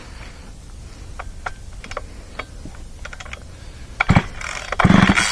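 Recoil starter of a Craftsman 3.7 (Poulan 3700) 60cc two-stroke chainsaw: a few light clicks, then two hard pulls on the starter cord near the end. The engine does not fire; the pulls are drawing fuel up from the freshly filled tank.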